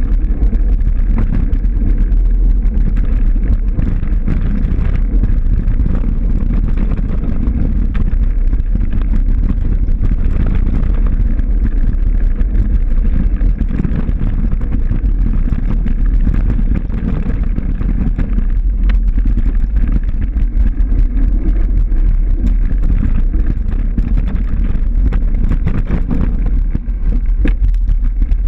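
Wind buffeting the microphone: a loud, steady low rumble with no clear engine note.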